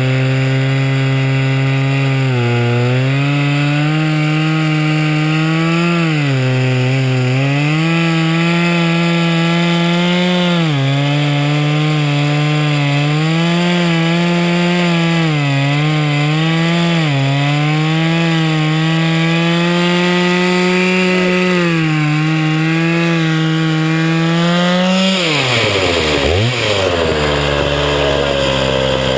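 Chainsaw cutting a slab from a blue spruce log on a homemade 2x4 chainsaw mill, its engine note dipping and recovering as the load in the cut changes. About 25 seconds in the throttle is let off and the engine falls away to a lower, steady idle.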